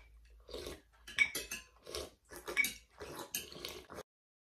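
Metal spoons clinking and scraping against ceramic soup bowls in quick repeated strokes, about two a second, several with a short bright ring; the sound cuts off shortly before the end.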